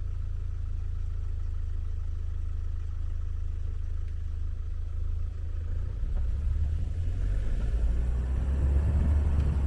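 Car interior rumble while driving: steady low engine and road noise, growing louder about six seconds in.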